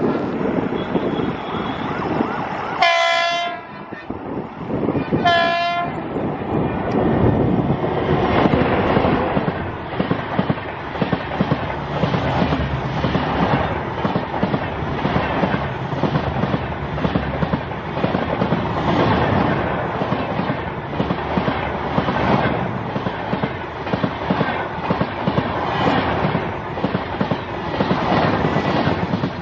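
Electric locomotive's horn giving two short blasts about two and a half seconds apart as it approaches, followed by its LHB coaches passing close by at speed with a steady rush and a rhythmic clickety-clack of wheels over the rail joints.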